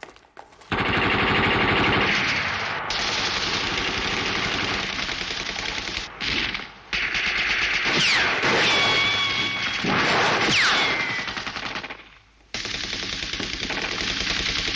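Rapid automatic gunfire in long runs, the rounds punching through wooden planks. The firing breaks off briefly about halfway through and again near the end. Two high falling whines cut across it in the second half.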